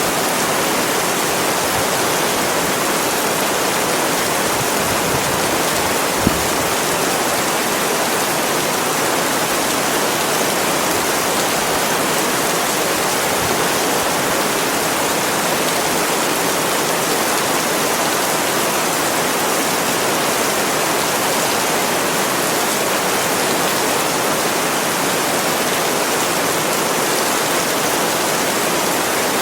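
Steady rain making an even, unbroken hiss with no separate drops standing out. One brief low thump comes about six seconds in.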